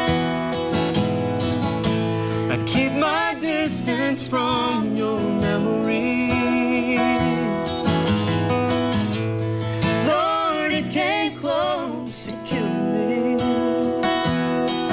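A steel-string acoustic guitar plays an instrumental break in a slow country ballad, with strummed chords ringing under it. A wavering lead melody comes in over the guitar in a few phrases.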